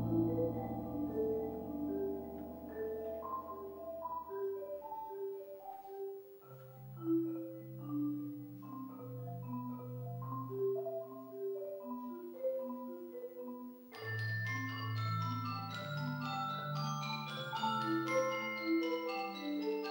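Tuned mallet percussion playing a slow line of single ringing notes, over the fading ring of a low drum stroke in the first few seconds. About 14 seconds in, more notes join, higher and denser.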